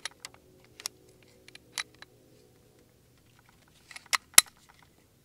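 Sharp metallic clicks and clacks of a steel pistol's parts as the slide is worked onto the frame of an FK BRNO PSD and the slide release is lined up for reassembly; a few scattered clicks, then two louder ones about four seconds in.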